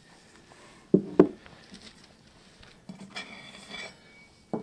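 Two sharp knocks, then a metal spatula scraping across the top of a metal measuring cup to level off granulated sugar, and two more knocks near the end.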